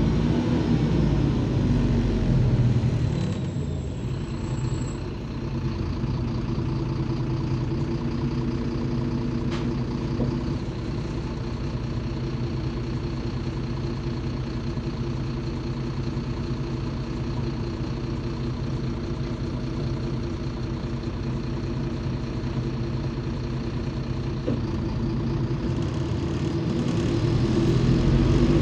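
Mercedes-Benz OM 926 LA inline-six diesel of a MAZ 203 city bus, heard inside the passenger cabin. The bus slows to a stop and the engine idles steadily for about twenty seconds, then revs up near the end as the bus pulls away.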